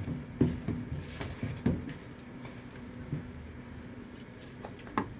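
A hand mixing flour and raisin bread dough in a large bowl, with soft rustling and a few dull thumps of the hand against the bowl, mostly in the first two seconds and once more near the end.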